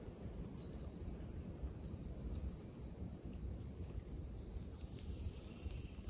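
Forest ambience: faint, short bird chirps scattered over a low, uneven rumble.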